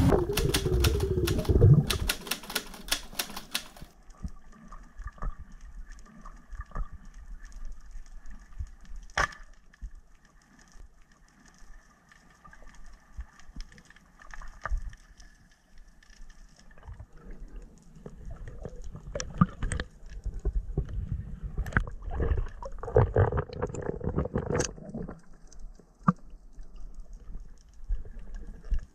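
Boat motor and wind noise on deck for the first few seconds, cutting off abruptly to the muffled sound underwater: faint crackling with scattered sharp clicks and ticks, and a faint steady whine.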